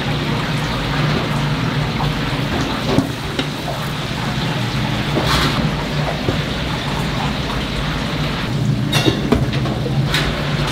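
Chicken deep-frying in hot oil, a steady crackling sizzle over a low hum, with a few sharper knocks about halfway through and near the end.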